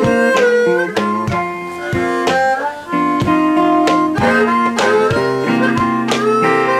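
Acoustic blues: a harmonica, played cupped around a handheld microphone, plays held notes that bend and slide. An acoustic guitar is strummed and plucked underneath it in a steady rhythm.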